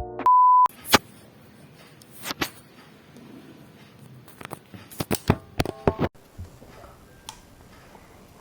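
A short, steady beep, then scattered clicks and knocks of a clip-on lapel microphone being handled, with a burst of clicks and rattles about five to six seconds in.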